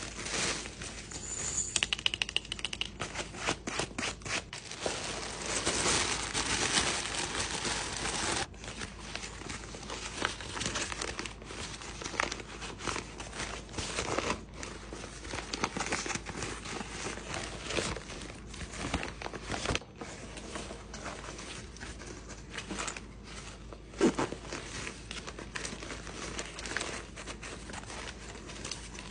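Clear plastic packaging bags crinkling and rustling as they are handled and pulled open, then the nylon fabric of an unwrapped bag rustling as it is handled. Dense rustling with many small crackles, loudest in the first third, and one sharper knock about three quarters of the way through.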